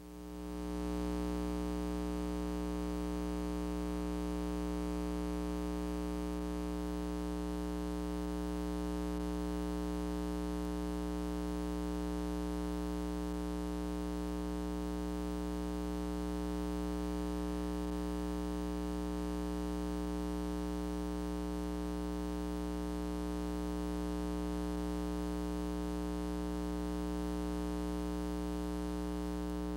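Steady electrical mains hum, a low buzzing drone with a row of evenly spaced overtones, swelling in over about the first second and then holding level, with nothing else heard.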